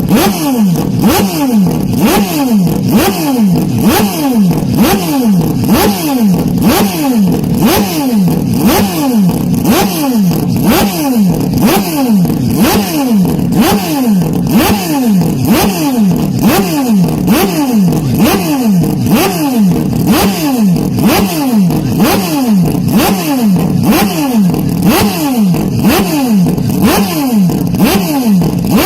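Porsche 911 RSR flat-six racing engine, bass-boosted and heavily distorted. Its revs climb and drop back sharply again and again at an even pace, a bit more than once a second, like a repeated upshift.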